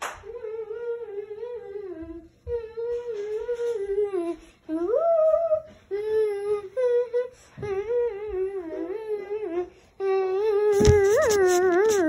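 A person humming a wavering, wordless tune in short phrases of a second or two with brief breaks, louder in the last two seconds.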